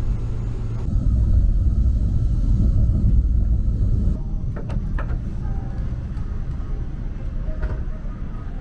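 Low, steady rumble of a KTX-EUM high-speed train running, heard from inside the passenger car. About four seconds in it drops abruptly to a quieter cabin hum, with two sharp clicks just after.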